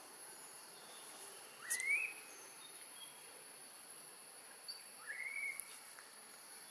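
Steady high-pitched insect drone in forest, with two short rising calls, about two and five seconds in.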